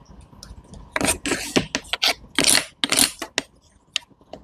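Crisp scraping and tapping strokes of fruit being cut and handled: a quick cluster of short scrapes and clicks starting about a second in, fading out shortly past three seconds.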